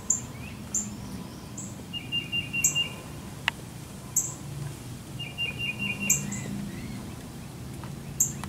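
Birds calling: repeated short, high chirps, and twice a rapid trill of quick notes, over a low steady hum. A single click about three and a half seconds in.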